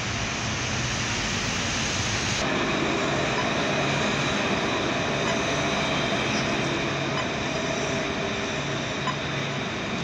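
Steady city street traffic noise with a low engine hum from passing vehicles. The sound changes slightly about two seconds in.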